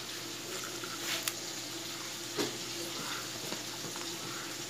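Beef tripe frying in hot fat in a pan: a steady sizzle with a few sharp pops.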